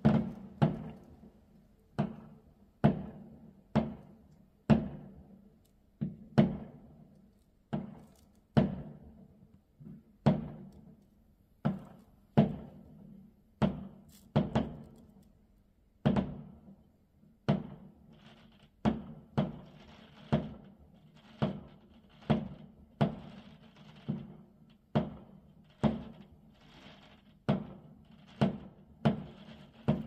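Fireworks going off in a rapid, continuous string of bangs, about one or two a second, each dying away in a short echoing tail. They are heard muffled from inside a house.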